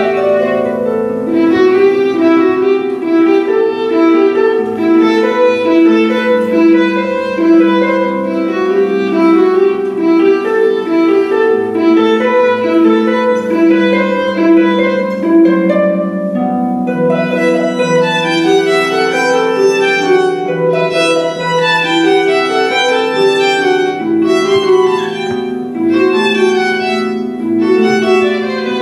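Violin and pedal harp playing a ragtime duet live: the violin carries a bowed melody over plucked harp notes. About halfway through, the notes become shorter and more detached.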